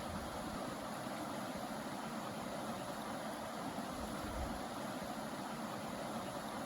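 A fast-flowing mountain river of icy meltwater rushing steadily, an even, unbroken hiss of running water.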